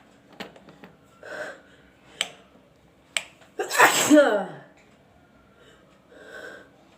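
A woman sneezes once loudly about three and a half seconds in, a voiced "achoo" that falls in pitch, after a few short sharp sniffs and a drawn-in breath. The sneeze is brought on by tickling the inside of her nose with the bristles of a soft grass broom (phool jharu).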